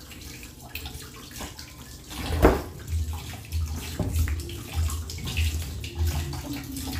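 Kitchen tap running into a stainless steel sink while raw chicken pieces are rinsed by hand under the stream, with small splashes and one louder sudden sound about two and a half seconds in.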